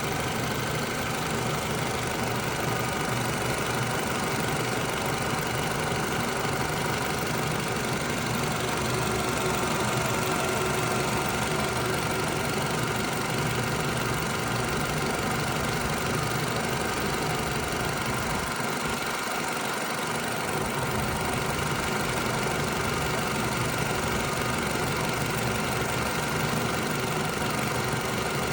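2009 Toyota RAV4 engine idling steadily.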